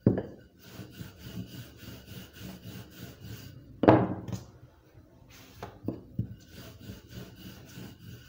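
Wooden rolling pin rolled back and forth over chapati dough on a floured countertop, a rubbing, scraping sound in repeated strokes. A few sharp wooden knocks come from the pin hitting the counter, the loudest about four seconds in.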